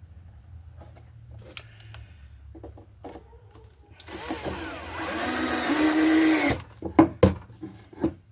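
Power drill driving an exterior screw into wood: the motor runs for about two and a half seconds, its pitch wavering and then holding steady, and stops suddenly, followed by a couple of sharp knocks.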